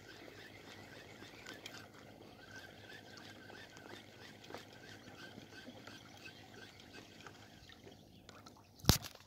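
Faint, steady lapping of small waves at a rocky shoreline with light handling noise, and a single sharp knock near the end.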